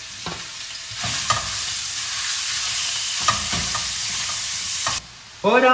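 Minced meat sizzling in hot oil in a frying pan while a spatula stirs and breaks it up, with a few sharp clicks of the spatula against the pan. The sizzle swells about a second in and cuts off abruptly near the end.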